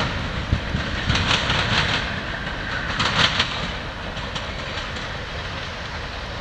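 Freight train of tank cars rolling away, its wheels clicking over the rail joints, with bursts of hissing rail noise about a second in and again about three seconds in. It grows quieter as the train recedes.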